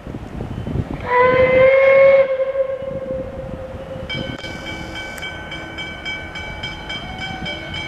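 Narrow-gauge steam locomotive's whistle sounding one short blast about a second in. From about four seconds in, a steady high-pitched tone follows.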